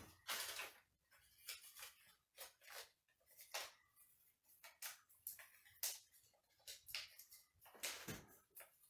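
Small folded paper slip being unfolded by hand: faint, irregular crinkling and rustling of paper.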